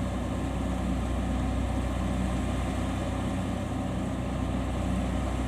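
Kubota DC70 combine harvester's diesel engine running steadily.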